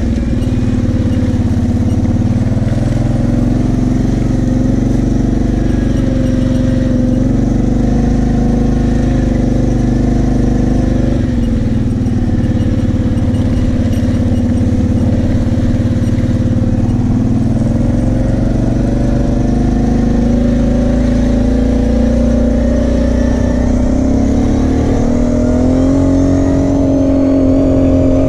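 Kawasaki KFX 700 V-Force quad's V-twin engine running at low to moderate throttle, its pitch easing up and down with the throttle, then climbing steadily for the last few seconds.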